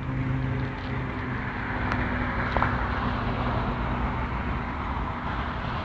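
A steady low engine-like hum under an even rush of wind-like noise.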